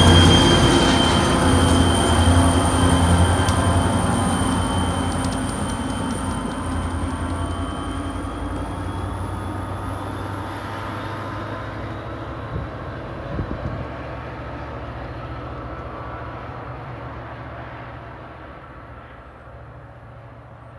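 CTrail GP40-3H diesel locomotive and its train pulling away, the engine running loud at first and fading steadily into the distance. A thin high whine carries on underneath and rises slightly in pitch about eight seconds in.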